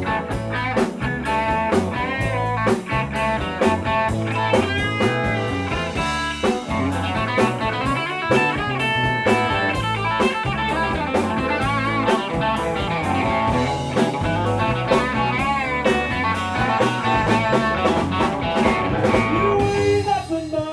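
Live blues-rock band of electric guitars, bass guitar and drum kit playing an instrumental passage, a lead guitar bending and wavering notes over a steady drum beat and pulsing bass line.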